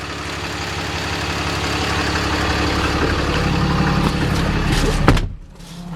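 Idling diesel engine of a 2009 Dodge Ram 5500, the 6.7 L Cummins, running steadily and growing gradually louder. About five seconds in there is a knock and the engine sound suddenly drops much quieter.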